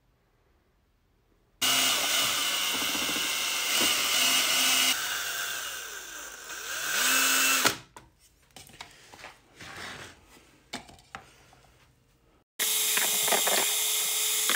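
Power drill spinning a paddle mixer through epoxy resin in a plastic container, running in two spells. The first starts about two seconds in and lasts around six seconds, its pitch dipping and rising again before it stops. A few light knocks and clicks come in between, and the drill runs steadily again near the end.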